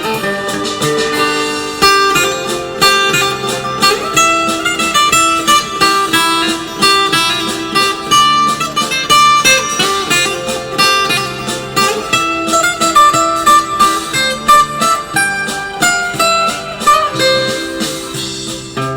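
Background music: a plucked guitar playing a melody with a steady pulse of notes.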